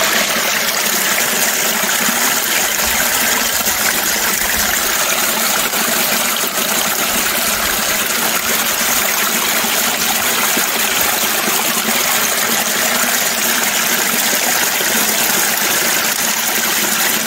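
Water rushing steadily down a metal sluice box over its riffles and matting: a heavy, turbulent flow, way too heavy in the operator's view.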